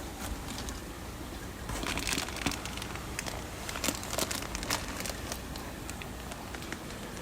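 Plastic fish-shipping bag crinkling as it is handled, with a thick run of sharp crackles from about two to five seconds in.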